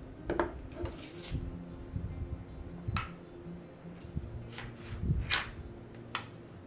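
A handful of short taps, clicks and light scrapes as an acrylic roller and a pointed clay pick are handled against a tabletop, the loudest a little past five seconds in, over faint background music.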